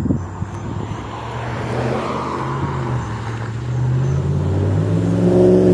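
Motor vehicle engine running close by, with tyre noise, rising in pitch and getting louder near the end as it accelerates.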